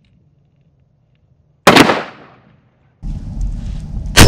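Two gunshots from an AR-15 fired without a buffer tube. One sharp crack comes about a second and a half in and dies away quickly. Near the end a second, louder crack follows a steady low rumble and is followed by a thin metallic ringing.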